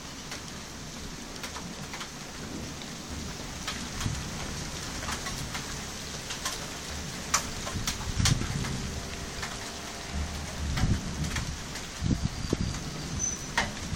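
Steady rain falling, with many drops ticking sharply close by. Low rumbles of thunder swell up about eight seconds in and again around eleven and twelve seconds.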